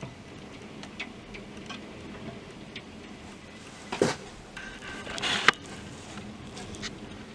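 Large hailstones striking hard surfaces as scattered sharp ticks and knocks, with a louder knock about four seconds in and the loudest strikes a second or so later.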